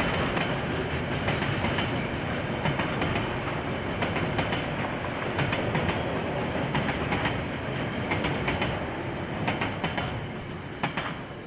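Freight train's container wagons rolling past, a steady rumble with the wheels clicking again and again over the rail joints. It fades toward the end as the last wagons go by. Heard through a security camera's microphone.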